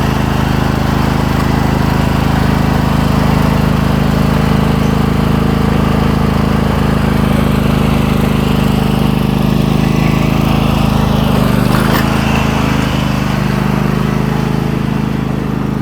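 Craftsman GT5000 garden tractor's engine running steadily. About three-quarters of the way through, its note dips briefly and there is a short sharp click.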